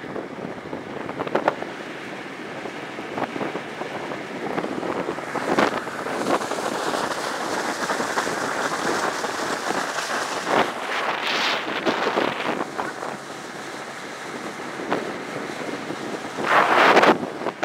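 Wind buffeting the microphone and water spray splashing off the hull of a small homemade wooden boat running across choppy water, with irregular louder gusts and splashes, the strongest near the end.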